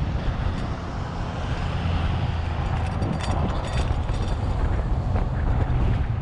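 Wind buffeting the microphone of a camera on a bicycle riding fast downhill, a steady low rumble mixed with road traffic going by. A few sharp clicks come about three to four seconds in.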